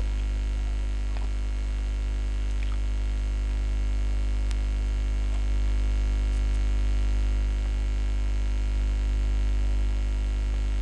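Steady electrical mains hum: a strong low hum with a thin buzz of evenly spaced overtones above it, unchanging throughout.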